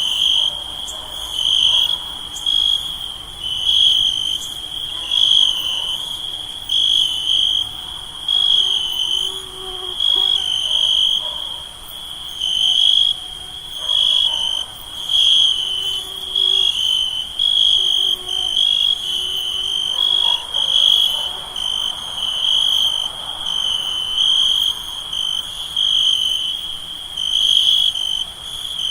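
Night chorus of crickets and other insects: a continuous high trill that swells in regular pulses about every one and a half seconds, over a steady, even higher insect hum.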